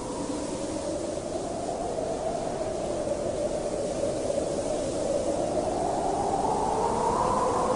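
Storm wind howling, a steady rush with a moaning tone that slowly slides up and down in pitch, gradually growing louder.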